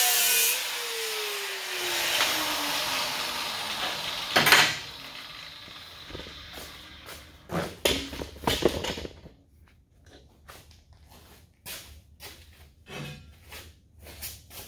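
Handheld angle grinder with a sanding disc grinding down high spots on a steel plate, then let off so its motor winds down with a falling whine over a few seconds. A sharp clank about four and a half seconds in, followed by scattered knocks and clanks of heavy steel being handled.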